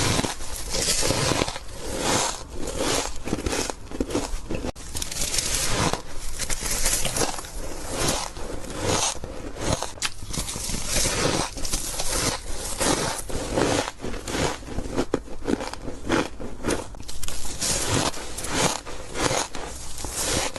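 A person biting and chewing soft, frosty ice close to the microphone: a dense, irregular run of crunches with no pause.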